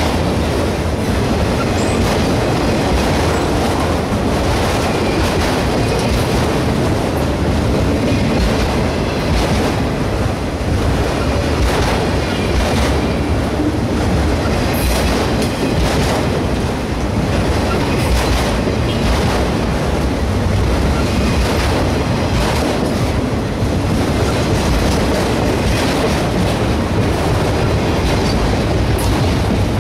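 Freight train of autorack cars rolling past: a loud, steady rumble of steel wheels on the rails, with wheels clicking at irregular intervals.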